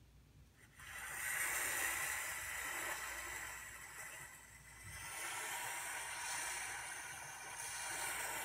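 A recorded sound of rushing water played from a laptop, set off by touching the painted boat on a Makey Makey artwork. It starts about a second in and swells twice, dipping about halfway through.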